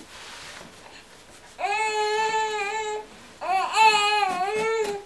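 A baby fussing: two drawn-out, high-pitched cries, the first starting about a second and a half in, the second wavering up and down.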